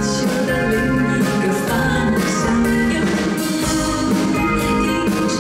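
Live band music: a woman's lead vocal sung into a microphone over a drum kit keeping a steady beat and guitar.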